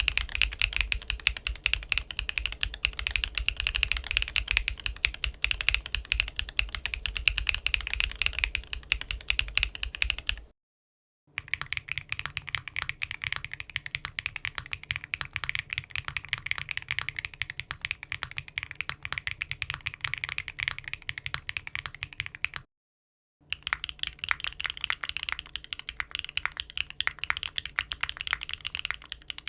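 Typing on mechanical keyboards fitted with HMX Blossom linear switches: fast, steady keystroke clatter in three separate takes on different test boards, each cut off by a brief gap of dead silence.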